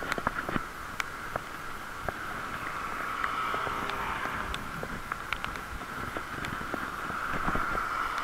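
Bicycle ride on wet city streets in light rain: a steady hiss of riding noise, with scattered sharp clicks and rattles.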